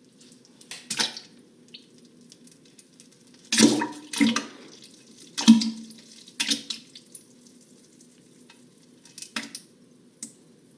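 Wet splashing and splattering, about six separate splashes with the loudest in the middle, over a steady low hum.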